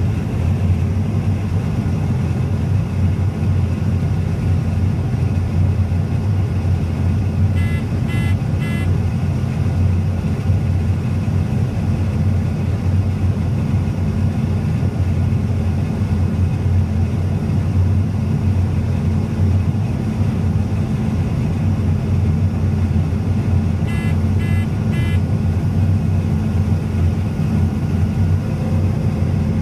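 Harvest machinery engine running steadily as a low drone. Two sets of three short high electronic beeps sound over it, about 8 and 24 seconds in.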